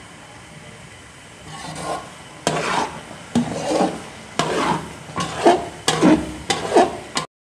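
Slotted metal spoon scraping and stirring a thick mass of grated carrots in a large metal pan, in repeated strokes about two a second. The strokes start about a second and a half in and stop abruptly near the end.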